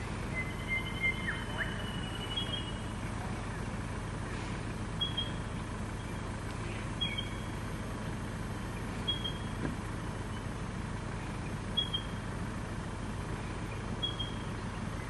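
Land Rover Discovery engine running steadily at low revs as the 4x4 crawls over a rutted sandy track. Short high chirps recur about every two seconds above the engine.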